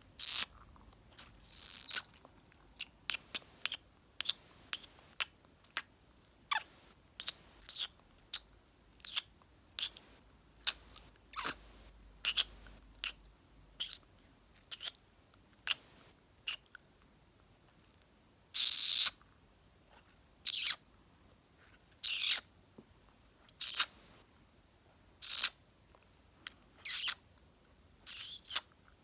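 Kissing and mouth sounds made right at the microphone: a run of kisses, lip smacks and wet clicks, about one or two a second, with a few longer drawn-out smacks.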